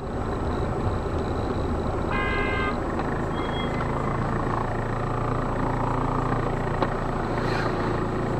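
Motor vehicle running steadily with a low rumble, and a short horn toot about two seconds in.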